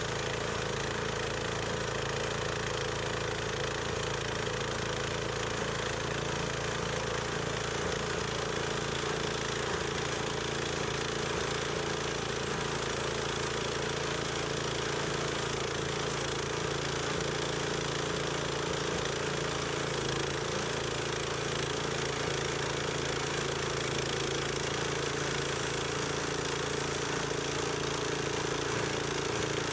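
Small gas-engine band sawmill running steadily, engine and blade turning at an even pitch. It is being run as a test after its worn band tire was re-centred, to see whether it still throws the blade.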